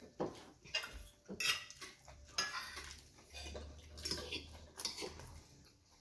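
Metal fork clinking and scraping on a ceramic plate as food is scooped up, a string of sharp, irregular clicks.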